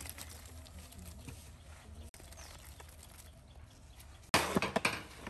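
Handfuls of sliced onions dropped onto raw beef in a large aluminium pot: a soft rustle, then a loud burst of small impacts lasting under a second, about four seconds in, over a steady low outdoor hum.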